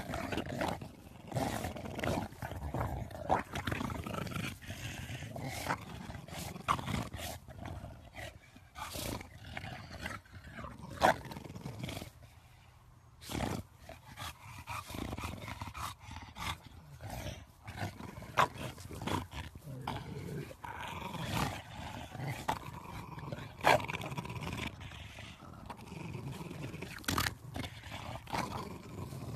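Two English bulldogs growling as they play-tug a large ball, with frequent knocks and scuffs from the ball. There is a brief lull about twelve seconds in.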